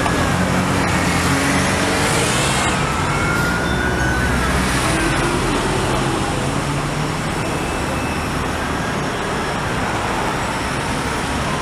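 Steady highway traffic noise and idling vehicle engines, with a few faint rising and falling tones in the first half.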